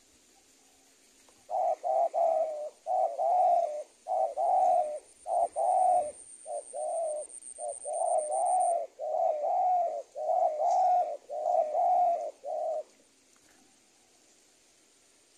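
Caged decoy spotted dove cooing: a long run of repeated low, hoarse coo phrases that stops near the end.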